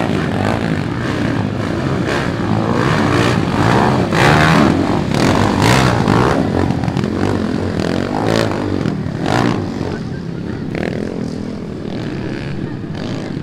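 Off-road motorcycle engines running and revving, loudest about four to six seconds in.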